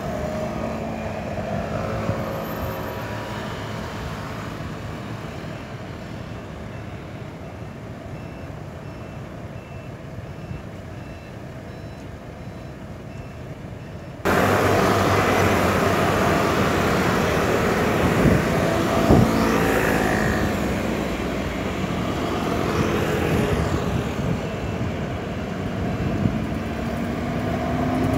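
City intersection traffic: scooters and cars running past, the noise jumping suddenly louder about halfway through. Near the end a city bus engine passes close, its pitch rising and then falling.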